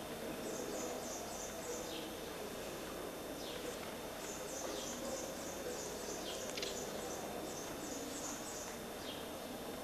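High chirping calls in quick clusters, with a few short downward-sliding whistles among them, over a steady background hiss and hum.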